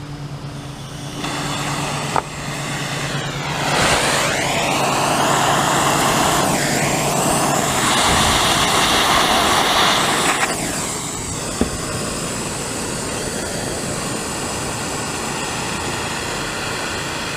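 Handheld gas torch burning with a steady jet-like rush while heating lead-free solder on copper. It comes on about a second in, is loudest for several seconds in the middle, and then runs a little quieter and steady.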